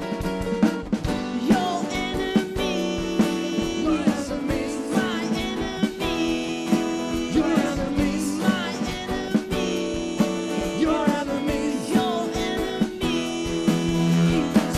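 Live band music led by guitar, with a steady beat.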